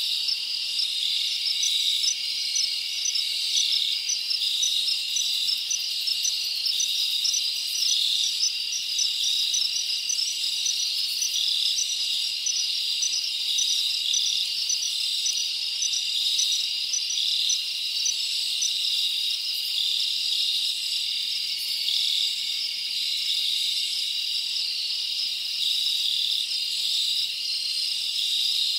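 A dense chorus of crickets: a steady high trilling, with a quicker series of short, higher chirps repeating on top through about the first two-thirds.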